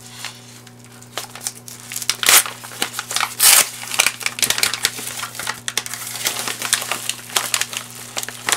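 Yellow padded mailer envelope being pulled open and handled, its paper and padding crinkling and crackling in irregular rustles. It is quieter for the first two seconds, with the loudest crackles about two and three and a half seconds in.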